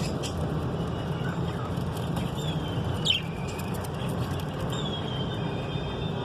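Green budgerigars chirping: scattered short chirps and whistles, with a louder falling chirp about three seconds in, over a steady low rumble.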